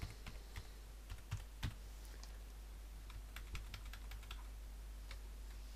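Computer keyboard being typed on: short, irregular runs of key clicks over a faint steady low hum.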